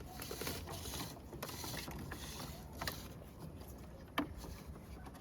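Handling noise from hands working on plastic car trim and wiring: rustling and scraping through the first couple of seconds, then two sharp plastic clicks a little over a second apart.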